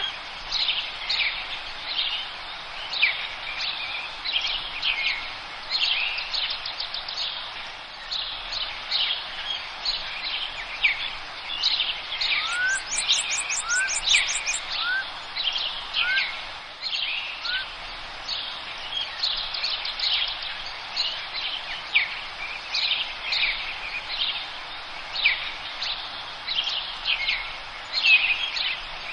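Several forest songbirds singing and calling, with many short high chirps throughout. About halfway through comes a fast, very high trill, alongside a run of five short rising whistles. A steady background hiss lies beneath the birds.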